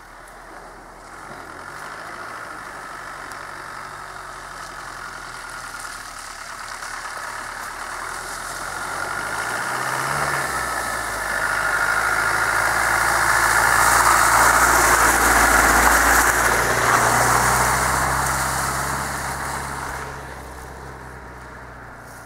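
Land Rover Defender's engine running at low revs as it crawls along a muddy, water-filled track, growing louder as it comes close and passes by about two-thirds of the way in, then fading away.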